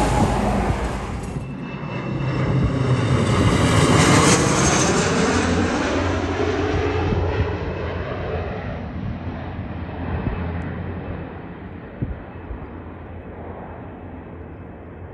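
A truck passes close by on the road for the first second or so. Then an Embraer E175 regional jet's twin turbofans pass low overhead on final approach. The engine whine falls in pitch as it goes by, loudest about four seconds in, and fades steadily as the jet heads away to land.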